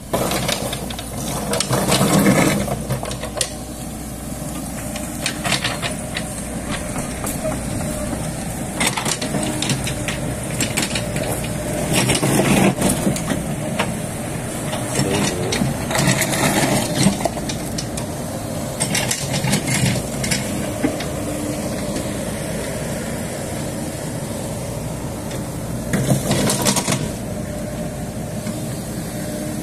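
Komatsu PC78US mini excavator running steadily under work, with louder, rougher surges every few seconds as it digs and moves material.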